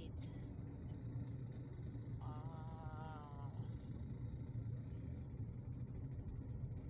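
Steady low rumble of road and engine noise inside a moving car. About two seconds in, a short wavering high tone sounds for a little over a second.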